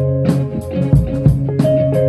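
A live band playing: electric guitar notes and chords over a drum kit, with cymbal or drum hits about three times a second.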